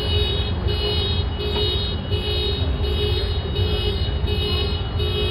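Rapid electronic beeping, about two beeps a second with a higher multi-tone chirp pulsing more slowly, over a steady low rumble of a car with its engine running.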